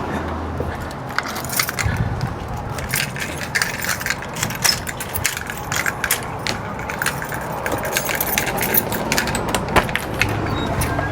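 Keys jangling and clinking, with many small, irregular sharp clicks.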